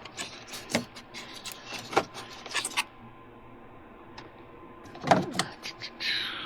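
Scattered light clicks and knocks of hand tools and car parts being handled in an engine bay, with a sharper knock about five seconds in and a brief falling scrape near the end.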